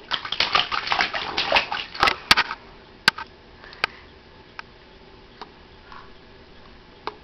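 Water splashed by a baby's hands in a small inflatable bathtub: a quick run of slaps and splashes for about two and a half seconds, then only a few scattered small splashes.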